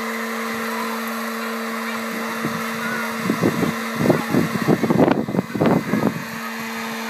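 Hot-air popcorn popper running as a coffee roaster, its fan motor giving a steady hum as it blows the beans around the chamber. About three seconds in, a louder irregular sound rises over the hum for about three seconds, then stops.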